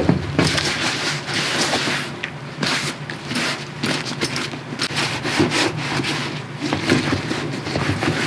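A leather cleaning wipe rubbed over a leather handbag, in a run of quick, uneven rubbing strokes.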